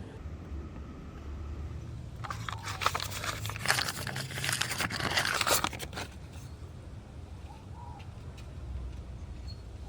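Irregular crunching and crackling lasting about three and a half seconds, starting about two seconds in, over a low steady rumble.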